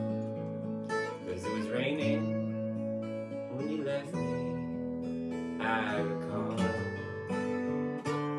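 Acoustic guitar strumming held chords in the instrumental close of a folk song, with a brief wavering melodic line over it twice.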